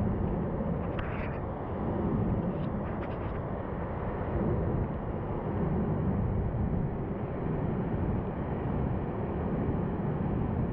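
A creek in high, muddy flow rushing over boulders, heard as a steady deep roar of white water. A few light knocks come in the first few seconds.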